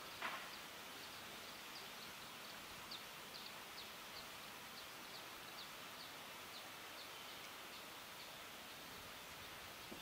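Faint outdoor ambience: a steady hiss with a brief falling sound just after the start, then a string of short, high chirps, about two or three a second, that die away near the end.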